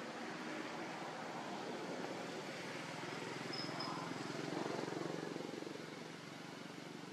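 A motor vehicle's engine passing by, its rapid pulsing growing louder to a peak past the middle and then fading away.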